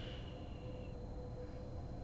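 A sleeping woman's noisy breath with a high whistling note, trailing off about a second in, then a pause before the next breath.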